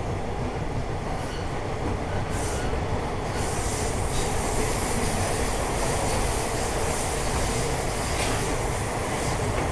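Bombardier T1 subway car running through a tunnel, heard from inside the car as a steady rumble. From about three seconds in, a high hissing screech of the wheels on the rails rises over it, with a few faint knocks.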